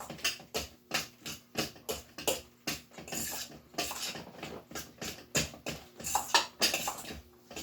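Wet salmon patty mixture of canned salmon, whole eggs and almond flour being mixed in a bowl: quick, even strokes, about three a second.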